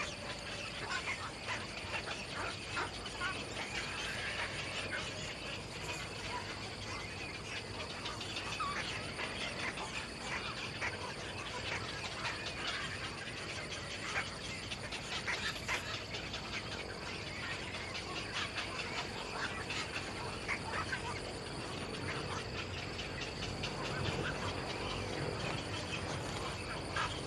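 Birds calling with many short, scattered chirps, over a steady high-pitched whine and background noise.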